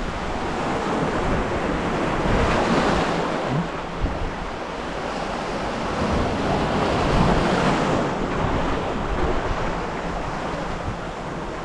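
Sea surf washing and breaking among shoreline boulders, swelling louder twice, with wind buffeting the microphone.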